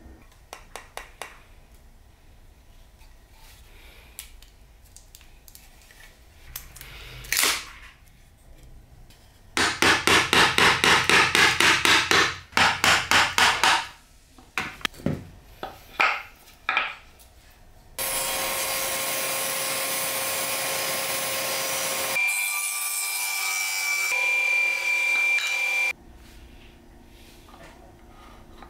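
Woodworking by hand: scattered scrapes, then a run of quick rasping strokes on wood, about four a second, lasting several seconds. Later a small power tool runs steadily for about eight seconds.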